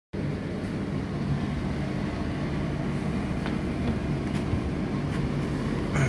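Indesit IDC8T3 8 kg condenser tumble dryer running its cooldown phase: a steady motor and fan hum as the drum turns, with a few faint ticks in the middle.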